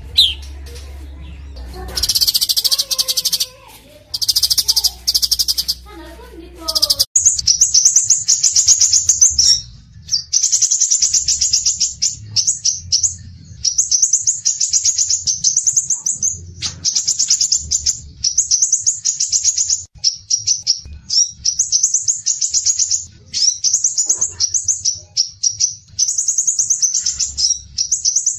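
Songbird song from a bird-training (masteran) recording. It opens with a few seconds of harsh, fast-pulsing chatter, then about seven seconds in turns to rapid high trills repeated in phrases of one to two seconds with short breaks.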